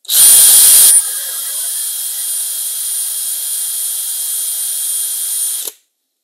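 Drill spinning a Scotch-Brite pad inside the swing arm's aluminium needle-bearing bore to polish it after honing. It starts abruptly, is loudest for about the first second, then runs as a steady high whine with hiss, and stops suddenly near the end.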